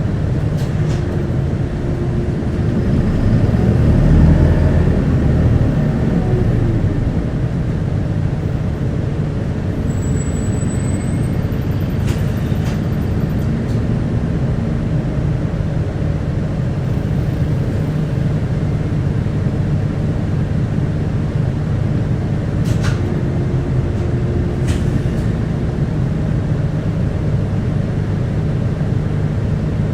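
Inside a moving Isuzu Erga (QKG-KV290N1) city bus: steady engine and road noise, swelling louder about four seconds in as the bus pulls harder. A few faint clicks come later.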